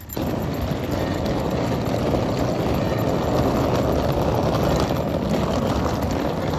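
Steady running noise of a vehicle in motion.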